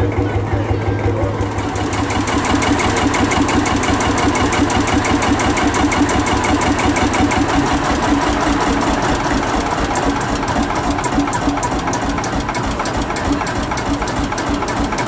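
Single-cylinder two-stroke diesel engine of a vintage Marshall tractor idling with a rapid, even thumping beat.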